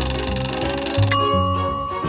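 Playful background music with a fast, bell-like ringing trill, then a single sustained ding about a second in.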